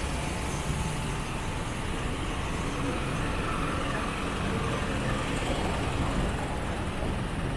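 Street traffic noise: a steady low rumble of vehicles running by.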